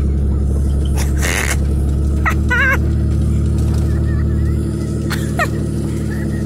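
Pickup truck engine running steadily while towing a sled, a low even hum. Over it come a short rushing burst about a second in, then a brief high wavering call and, near the end, a short falling call.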